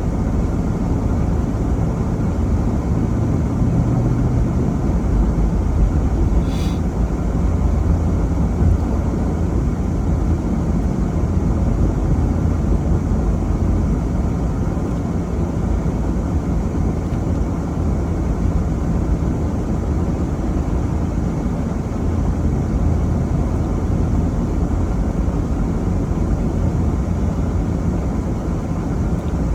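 Vehicle driving at steady speed: a continuous low rumble of engine and road noise. A brief faint high chirp comes about seven seconds in.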